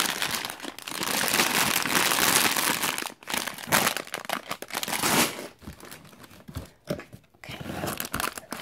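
Clear plastic bags packed with Lego bricks crinkling as they are handled. The sound is loudest over the first three seconds, then comes in shorter bursts, quieter in the later part.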